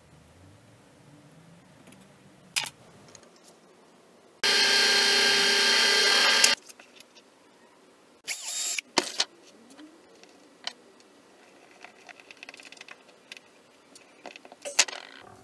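A power drill runs steadily for about two seconds, a few seconds in, then a shorter burst follows. After that come light clicks and taps of small parts and a hand tool being handled.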